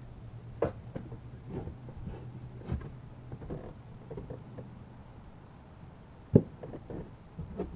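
Scattered light knocks and clicks of tools being handled against a wooden subwoofer enclosure during screw removal, with one sharper knock about six seconds in. A low steady hum runs underneath and stops about five seconds in.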